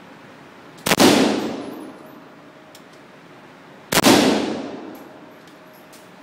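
Two single shots from a converted Saiga AK-pattern rifle, about three seconds apart, each ringing out in the reverberant indoor range, with faint clinks in between.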